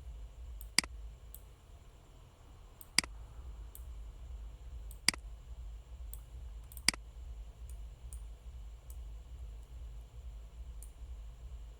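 Computer mouse clicking: four sharp clicks about two seconds apart, with fainter ticks between them, over a low steady hum.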